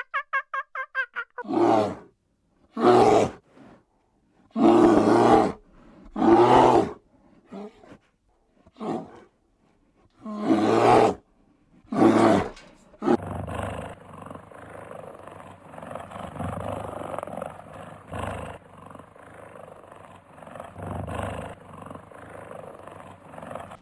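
A large farm animal giving a series of about eight loud, rough, deep calls, some short and some over a second long, then a quieter, steadier rumbling mix of animal noise for the rest.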